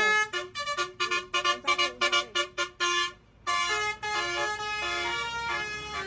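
Telolet multi-tone musical air horn on a coach bus playing a tune: a run of short, quick notes, a brief break about three seconds in, then longer held notes.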